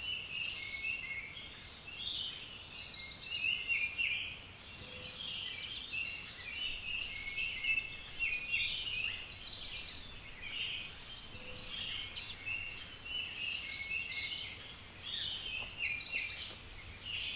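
Outdoor chorus of calling insects and other small animals: one high, even pulsing call repeating about three to four times a second, with irregular chirps and short trills coming and going beneath it.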